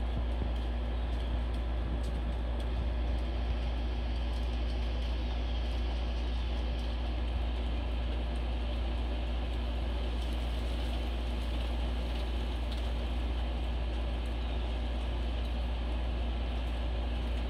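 Steady low background rumble with a faint constant hum, unchanging throughout.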